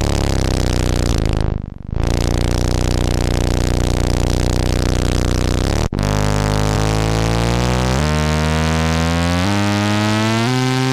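Sine-wave oscillator through a resonant analog low-pass filter into the Erica Synths / Gamechanger Audio Plasma Drive distortion module: a buzzing distorted synth drone thick with overtones. It dips briefly about two seconds in and cuts out for an instant near six seconds, then steps up in pitch note by note over the last few seconds.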